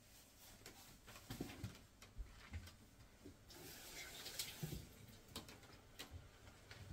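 Faint kitchen handling noises: scattered light clicks and small knocks of things being moved about on the counter, over a low background hiss.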